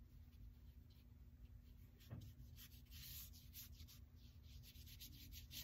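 Faint, irregular brushing of a watercolour paintbrush on sketchbook paper as paint is laid on, the strokes a little louder about two and three seconds in.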